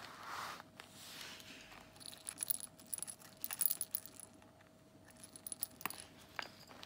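Small metal charms and jump rings on a junk journal's ribbon dangle jingling and clinking as the dangle is handled, in two clusters of quick, bright clicks, the second shorter, after a soft brush of handling at the start.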